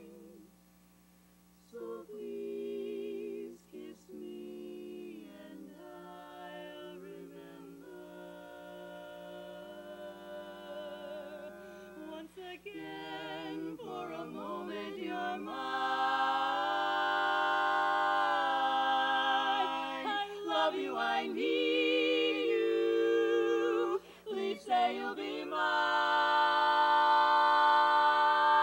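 Women's barbershop quartet singing a cappella in close four-part harmony. After a brief pause about a second in, it starts softly and builds, and the last third is loud, sustained chords with vibrato.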